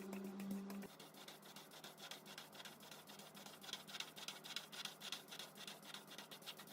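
Rapid brushing or scrubbing strokes, many a second, while a low steady motor hum cuts off about a second in.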